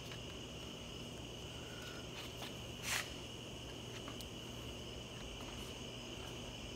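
Light clicks and a brief scrape, loudest about three seconds in, as gloved hands work a brake return spring onto the brake band of an Allis-Chalmers 190XT, over a steady high-pitched whine and a low hum.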